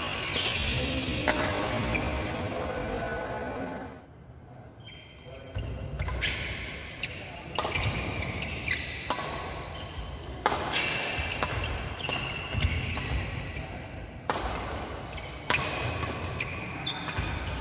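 Badminton doubles rally on a wooden court: rackets hitting the shuttlecock in sharp, irregular cracks, with shoes squeaking and thudding on the floor. The hits echo in a large hall. There is a short lull about four seconds in before play picks up again.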